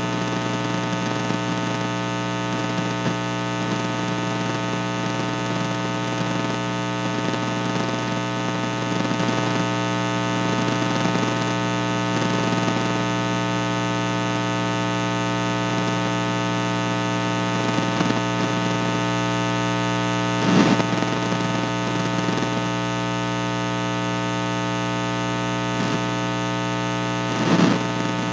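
Steady electrical mains hum and buzz with many overtones, loud and unchanging, as if the recording holds only line noise. Two short louder bursts break through, about two-thirds of the way in and near the end.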